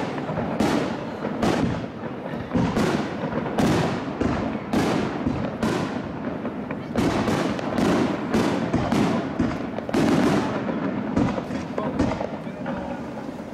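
Aerial fireworks shells bursting in a rapid barrage (uchiage renpatsu), a bang about once or twice a second, each echoing away under continuous crackle.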